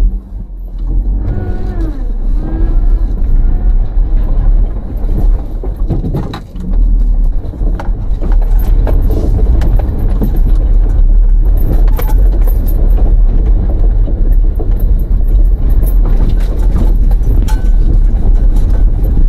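Car driving along a rough, unpaved riverbed track: a steady low road rumble with frequent rattles and knocks as it goes over bumps.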